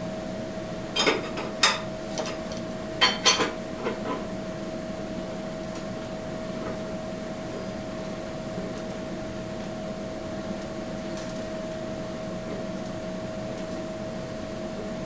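A few sharp clinks of metal hand tools in the first few seconds. After that there is only a steady shop hum with one constant tone.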